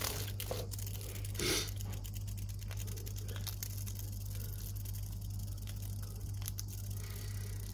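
Baby monkey chewing a cicada: small crunches and crackles as it bites through the insect's hard shell, with a louder rustle about a second and a half in, over a steady low hum.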